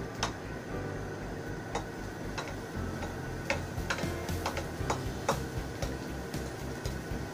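A metal spatula tapping and clicking against a pan while shallots and garlic are sautéed, in irregular light taps about once or twice a second.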